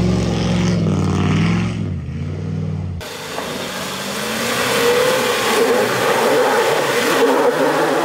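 Jeep Grand Cherokee's 5.9 V8 revving hard while climbing through mud, its pitch rising and falling. After about three seconds it cuts suddenly to a Mercedes X-Class X250d's diesel engine pulling under load up a dirt slope, with a dense rushing noise of tyres churning through soil.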